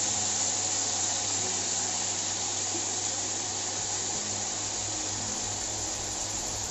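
Peas, paneer cubes and chopped vegetables sizzling steadily in hot oil in an aluminium kadhai as they brown.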